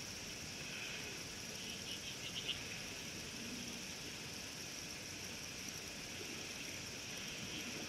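Steady high-pitched insect chorus, with a short run of quick chirps about two seconds in.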